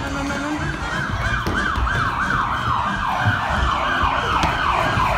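Siren sound effect in a rapid yelp, a quick series of sweeping pitch cycles, about three a second.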